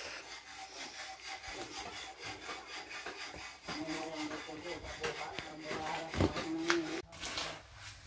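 Repeated scraping strokes from hand work on a building site, with faint voices in the background.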